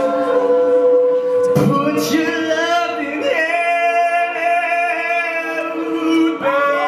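A cappella group singing a sustained chord, with two sharp percussive hits about a second and a half in. A male soloist then comes in at full voice over the group's held backing chords.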